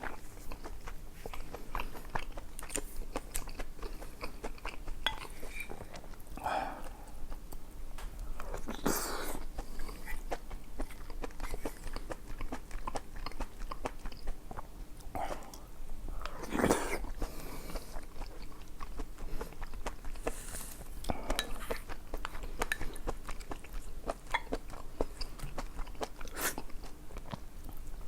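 Close-miked eating: steady chewing with many small wet mouth clicks, and a few louder, longer mouth sounds about nine and seventeen seconds in.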